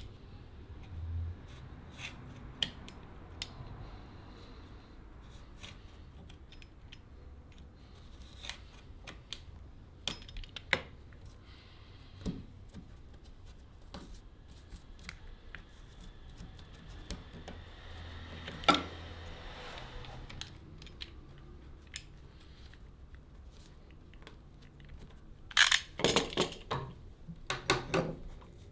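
Scattered light clicks and taps of small hard objects being handled, with a quick run of louder knocks near the end.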